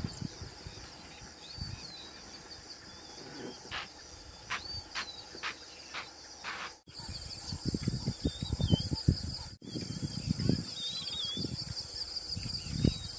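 Crickets trilling steadily, with short chirping bird calls over them and a few sharp clicks. In the second half there is a run of louder low thumps and rustles.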